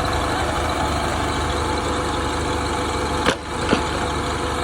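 Diesel engine of a JCB 3CX backhoe loader running steadily at idle. A little past three seconds in, two sharp clicks about half a second apart, the engine sound dipping briefly between them.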